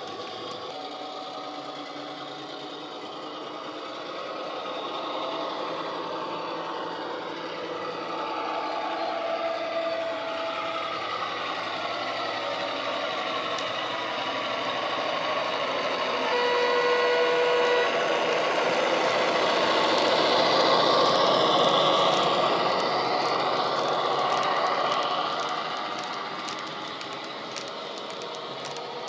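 Sound-decoder diesel engine of an Irish Rail A class model locomotive working a train, its engine note climbing in pitch as it powers up, with a short steady horn note about 16 seconds in. It grows louder as the loco and wagons pass close by, then fades, with light clicking from the model's wheels near the end.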